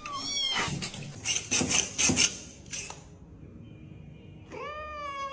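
A cat meowing: a short meow at the start and a longer one that rises and then holds near the end, with a few light taps or knocks in between.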